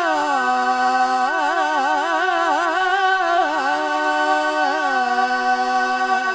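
Naat singing: a male voice sings a long, wordless, ornamented phrase, quick wavering turns between held notes, over a steady sustained drone.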